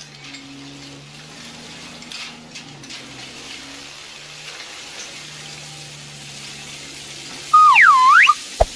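Faint steady hum, then near the end a loud whistle-like tone that swoops down and back up in pitch, followed by a sharp click.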